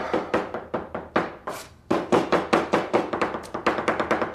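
Kitchen knife chopping on a cutting board in quick, even strokes, about five a second, with a short pause about two seconds in.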